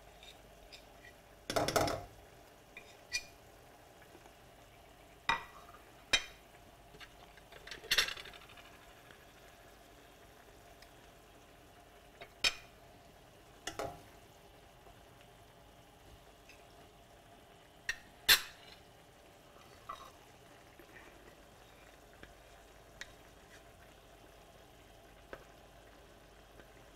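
A utensil stirring a simmering marsala sauce in a skillet as it thickens with a butter-and-flour mix: about a dozen irregular knocks and clinks against the pan, the loudest about two seconds in and near the middle, over a faint steady simmer.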